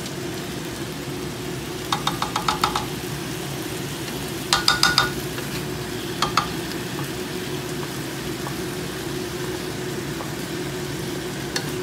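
Stir-frying in a wok: a steady sizzle as a wooden spatula stirs the food, over a steady hum. Runs of quick ringing taps come from the spatula striking the pan, about two seconds in and again near five seconds, with one more tap shortly after.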